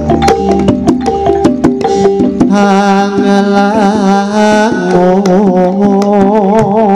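Live campursari music: a singer holding long wavering notes in Javanese over quick strokes of a kendang hand drum, with the band's pitched instruments filling in underneath.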